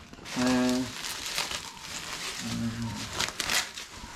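Plastic and bubble-wrap packaging crinkling and rustling in short, irregular crackles as a boxed inflatable pool is handled and unwrapped.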